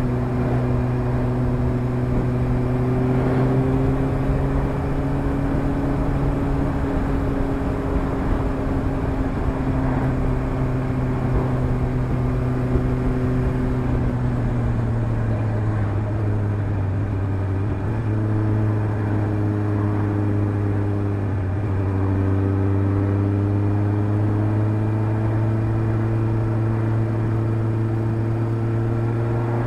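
Suzuki GSR750's inline-four engine through a Fuel Diablo slip-on exhaust with the dB-killer fitted, cruising at steady revs on the move. The pitch eases down about halfway through and dips briefly twice, then climbs slowly as the bike accelerates.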